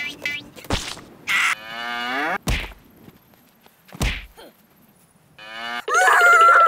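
Heavy thuds of a punching bag being struck and knocked over, about three times. Between them comes a long moo that falls in pitch. Near the end a child gives a loud scream.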